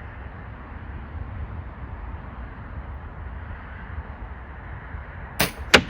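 Gamo Swarm Whisper .22 break-barrel air rifle shooting: two sharp cracks about a third of a second apart near the end, the second louder, over a steady low background rumble.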